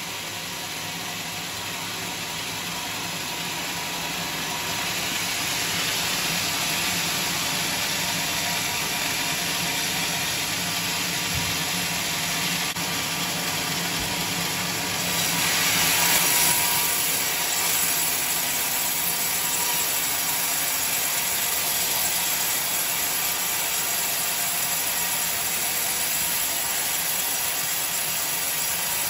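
Band sawmill's steel blade running and ripping lengthwise through a coconut-palm log, a steady dense cutting noise that grows louder over the first few seconds and swells briefly about halfway through.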